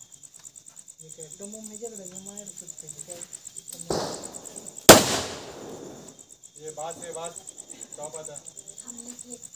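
A firecracker goes off with one sharp bang about five seconds in, after about a second of rising hissing noise, and the bang fades over about a second. Crickets chirp steadily in the background.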